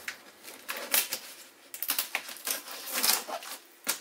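Utility knife slitting the packing tape on a large cardboard box: an irregular run of short, scratchy cuts, the sharpest about a second in and again near the end.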